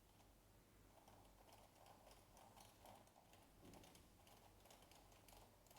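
Faint, irregular clicking of a bike-chain fidget toy's links as it is fidgeted in the hand.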